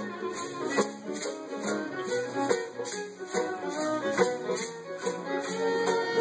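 Acoustic band playing an instrumental passage between sung lines: a fiddle over strummed acoustic guitars, banjo and ukulele, keeping a steady, even rhythm.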